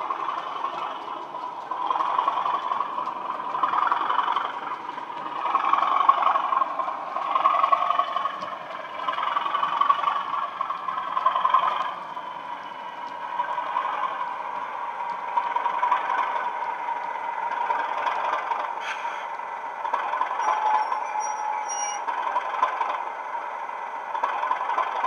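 Model Class 37 diesel locomotive's DCC sound decoder playing a Legomanbiffo Class 37 engine sound through twin 20x20x7 mm megabass speakers. The engine note swells and eases several times in the first half, then settles into a steady run as the model comes towards the camera.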